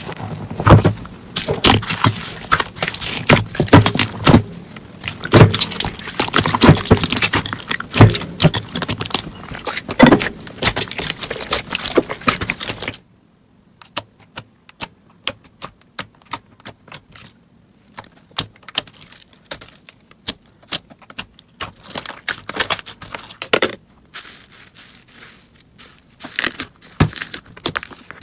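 Slime being squeezed and poked by hand, making dense crackling and popping clicks. About 13 seconds in it cuts abruptly to a quieter stretch of sparser, sharp clicks and pops.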